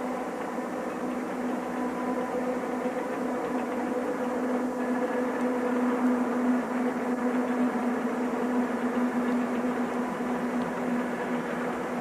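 Rio Grande diesel locomotives running steadily as the train passes, a steady engine drone with a constant hum over the rushing of the train, swelling slightly midway.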